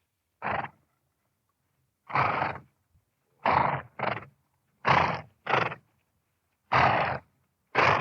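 Horse vocalising in a series of about eight short, breathy bursts with gaps of silence between, some coming in quick pairs.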